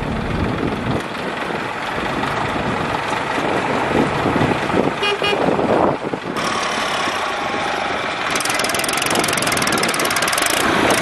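New Holland 3230 tractor's three-cylinder diesel running as it pulls a loaded trailer along a dirt track, with tyres crunching over loose gravel in the last few seconds.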